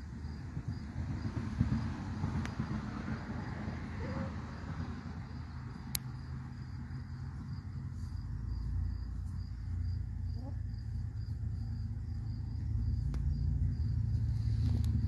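Outdoor ambience: a faint, steady high insect trill over a low rumble that grows louder in the second half.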